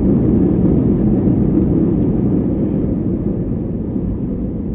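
Cabin noise of an Airbus A320-family airliner rolling down the runway after touchdown: a steady low rumble of engines and wheels that slowly fades as the aircraft slows.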